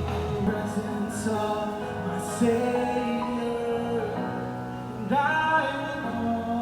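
A gospel song: a singer holds and slides between long notes over instrumental accompaniment.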